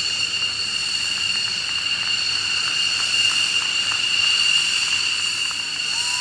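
Steady high-pitched whine of F-15E Strike Eagle jet engines as the fighters taxi past, over an even rushing hiss.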